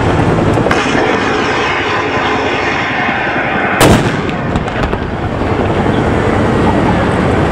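Steady rumble of military vehicle engines, broken a little under four seconds in by a single loud gunfire blast from blank or pyrotechnic fire.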